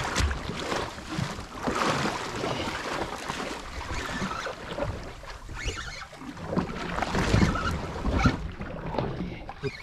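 Wind buffeting the microphone over water sloshing and splashing against a small boat's hull, with irregular knocks.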